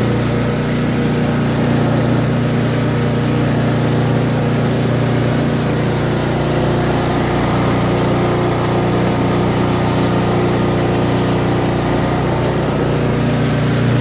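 Briggs & Stratton engine of a Murray Brute 29-inch snowblower running steadily at a constant speed, with the wheel drive engaged and working again on a newly fitted friction drive disc.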